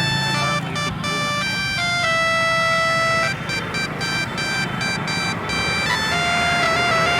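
Bus 'telolet' Basuri musical air horn playing a tune of held notes that step up and down in pitch, over the low hum of the bus engine running.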